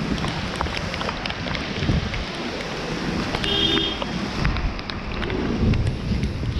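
Rain falling, with drops ticking sharply and wind buffeting the action-camera microphone in a low rumble. A short pitched beep, like a vehicle horn, sounds about halfway through.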